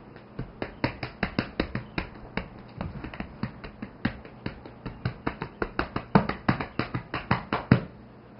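Tapotement massage: hands rapidly patting and tapping on a dog's side, a quick run of sharp slaps at about five or six a second with brief pauses, stopping near the end.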